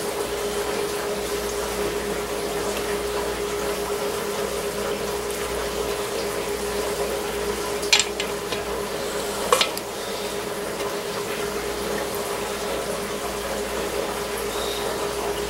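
Steady hiss with a low hum in the background, broken about halfway through by two sharp metal clicks about a second and a half apart as small valve parts are set into the Farmall Touch Control housing.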